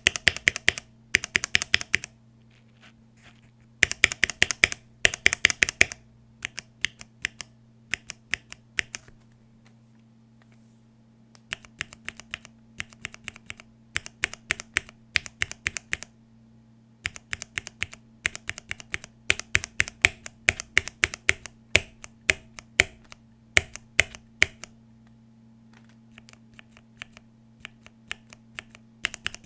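Cherry MX Red linear keyboard switches on a switch tester pressed and released in quick runs of sharp clacks, with short pauses between runs; the first switch heard is unlubed.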